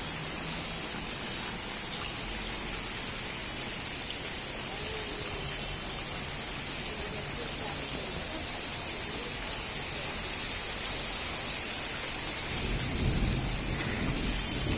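Steady rain falling, an even hiss of drops, with a low rumble swelling near the end.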